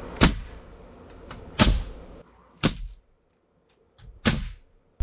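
Four sharp bangs spaced roughly a second apart, each with a brief ringing decay.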